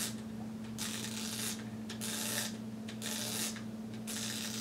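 Winding knob on a Kiev 88 medium-format film back being twisted by hand in about four rasping strokes, roughly one a second, winding the film's backing paper on toward the start mark. A steady low hum sits underneath.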